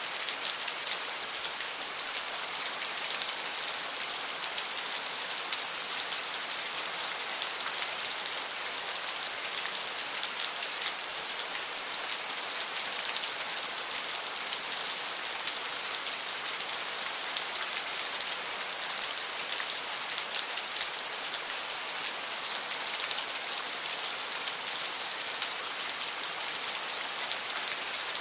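Steady rain falling: a dense, even hiss of countless drops, bright and high rather than deep, with no change in strength.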